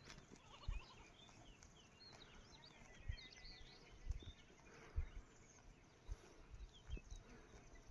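Faint birds chirping and twittering in short quick calls, in clusters, over a hushed background, with a few soft low bumps from the camera being handled.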